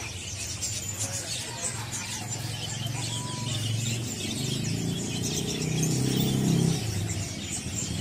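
Many small caged songbirds chirping together in quick, overlapping high calls. Under them a low rumble swells about halfway through and fades again.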